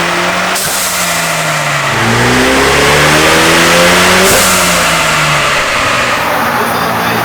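Ford Bronco engine on a chassis dyno, exhaust valve of the XForce Varex catback open. The engine falls in pitch, then pulls up in revs to its loudest point about four seconds in, drops back and settles near the end.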